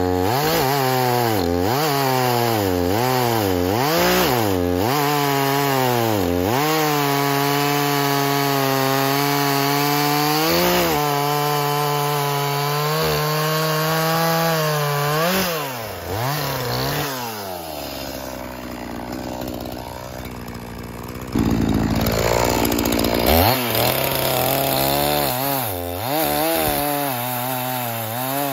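Echo CS-4510 two-stroke chainsaw revving and cutting through a log, its engine pitch rising and falling over and over as the throttle is worked in the cut. It holds at high revs for a few seconds near the middle, drops back and quietens about two-thirds of the way through, then revs up again into the wood.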